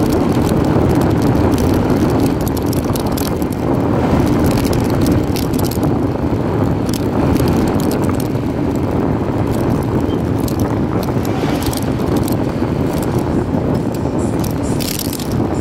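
Steady engine and road noise from a moving motorcycle, with wind buffeting the phone's microphone.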